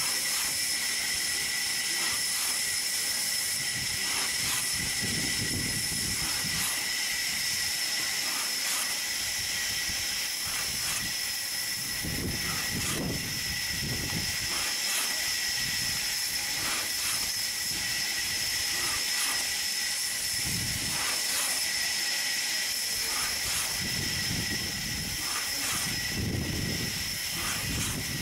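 Long two-man hand saw rasping back and forth through a big rain tree log in repeated strokes, over a steady hiss.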